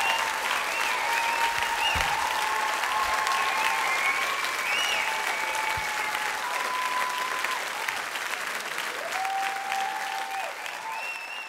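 Theatre audience applauding, with voices calling out held, wavering notes over the clapping; the applause slowly fades.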